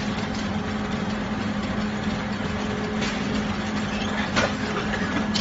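Brick-making plant machinery running steadily, a constant hum over a dense mechanical din, with a few sharp clicks in the second half.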